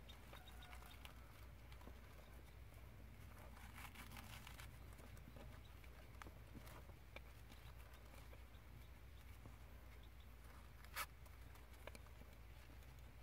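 Near silence with faint rustling and light ticks of narrow ribbon being handled and tied into a small bow; one sharper tick near the end.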